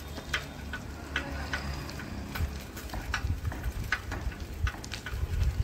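Footsteps of someone walking on a paved lane, short sharp steps about twice a second, over a low rumble of wind on the microphone.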